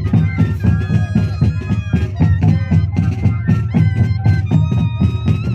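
Moseñada band: a group of moseño cane flutes playing a wavering melody together over a steady drum beat.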